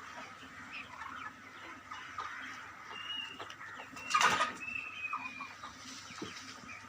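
A flock of broiler chickens clucking and calling, with short high calls now and then. About four seconds in there is a brief, louder burst of noise.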